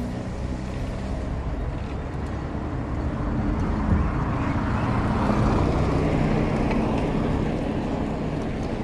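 Wind rushing over a GoPro microphone on a moving mountain bike, with tyre noise on asphalt; the rush builds a few seconds in and eases near the end.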